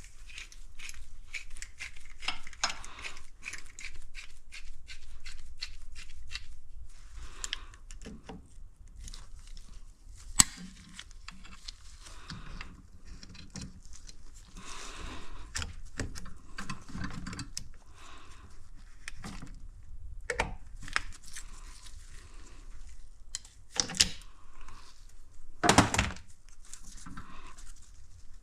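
Hand tools and small metal engine parts clicking and clinking during engine reassembly. A run of quick ticks fills the first several seconds, and there are a few sharp knocks, the loudest about ten seconds in and near the end.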